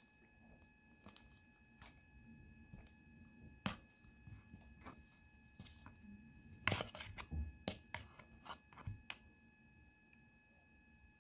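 Kitchen knife scraping avocado flesh from its skin and tapping against a plastic bowl: scattered short scrapes and taps, the loudest cluster about two-thirds of the way in. A faint steady high whine lies underneath.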